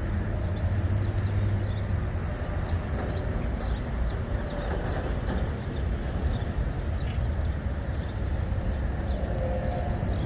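Steady low rumble of outdoor background noise, with faint short high chirps scattered through it.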